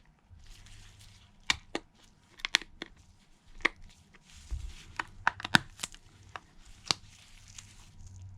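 Scattered light clicks and taps, about a dozen spread irregularly, from handling the iPhone 11 as its new screen is lined up and pressed onto the frame.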